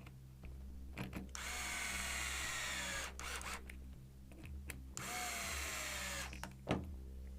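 A small electric driver running twice, each run a little over a second, its whir dropping in pitch as it drives and seats a cover-plate screw on an RC car's differential housing. A sharp click near the end.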